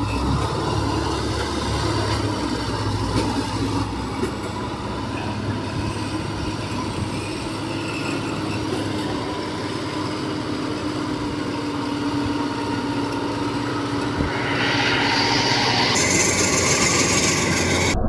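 Engine of a small tracked rice-carrier running steadily as it crawls through deep mud with a load of rice sacks, its tracks clogged so it steers poorly. The engine gets louder and harsher about fourteen seconds in.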